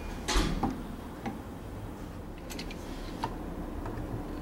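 A switch faceplate and screwdriver being handled as the cover is fitted over the switch box: one sharp knock about half a second in, then a few light clicks and taps.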